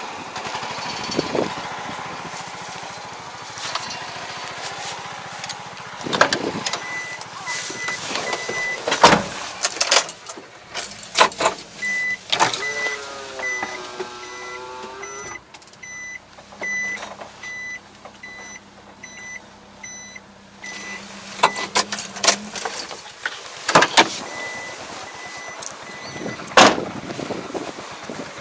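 A small truck being moved up beside a tractor: door and body clunks, the truck's engine, and an electronic warning beep that repeats at a steady pace for several seconds and then stops. A tractor engine is running at the start and fades away.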